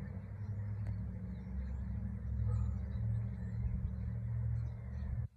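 Low, steady rumble of a jet airliner cruising at high altitude, which stops suddenly near the end.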